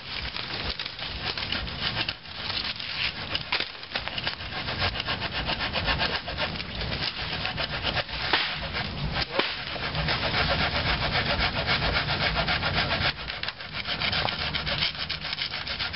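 Hand saw cutting through wood in quick, steady back-and-forth strokes, with a brief pause near the end.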